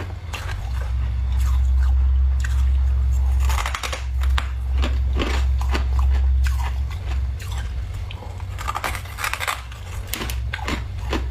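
Thick, crunchy freezer frost crunching in irregular bursts and clusters as it is worked loose, over a steady low hum.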